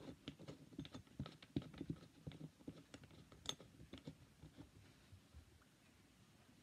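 Faint, irregular clicks and scratches as fingers work at a drain fitting in a plastic tub sink. The clicks thin out after about four seconds.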